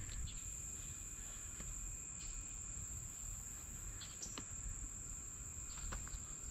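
Steady high-pitched insect trilling of a summer creek bank, with low wind rumble on the microphone and a few faint clicks.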